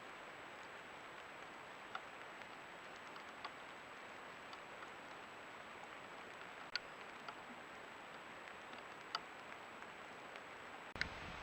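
Faint steady outdoor hiss, with a few isolated light ticks spread several seconds apart.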